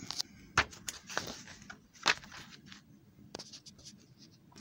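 Paper pages of an instruction manual rustling and crinkling as they are handled and turned over. There are sharp crackles near the start and again about two seconds in, then a few lighter ticks.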